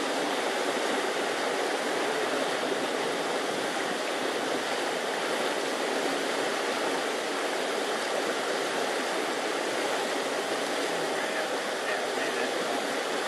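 Flooded river rushing steadily: a constant, even wash of fast-running water.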